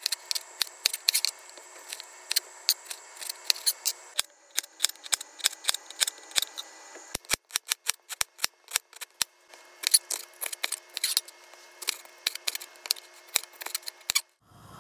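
Chef's knife slicing through tomatoes, galangal and bell pepper onto a cutting board: a quick, irregular run of sharp taps and chops as the blade hits the board.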